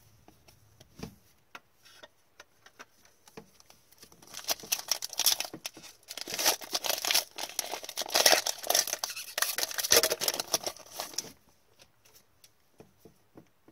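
A foil trading-card pack being torn open and crinkled by gloved hands, in a loud crackling run from about four seconds in to about eleven seconds in. Light clicks of cards being handled come before and after it.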